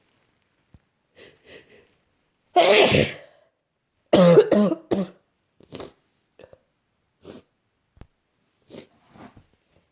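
A person with a bad cold coughing: one harsh cough about two and a half seconds in, then a loud run of several coughs about four seconds in. Shorter, fainter throat sounds come before and after.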